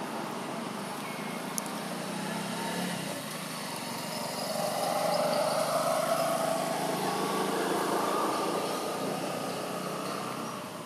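A motor vehicle passing, its engine hum swelling about halfway through and fading near the end.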